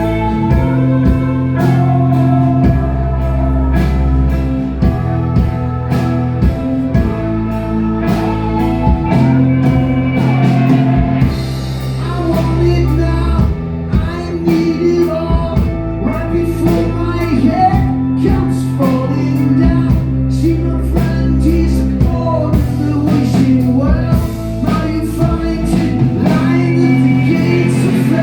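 Live rock band playing: a singing voice over electric guitar, bass and drum kit, with sustained bass notes that change every couple of seconds.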